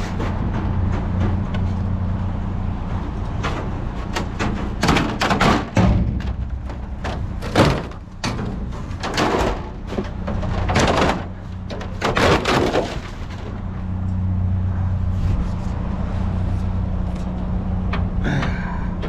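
A vehicle engine idling with a steady low hum, under a run of knocks, clanks and clatters as scrap and junk are handled and moved.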